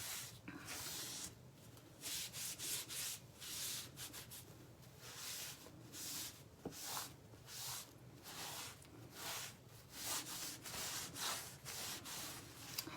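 Wet wipe rubbed back and forth over a stained plywood board in many quick, irregular strokes, wiping off the excess wood stain.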